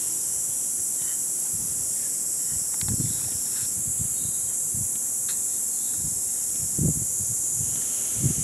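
Insects buzzing in a steady, high-pitched drone, with a few soft low thumps about three, seven and eight seconds in.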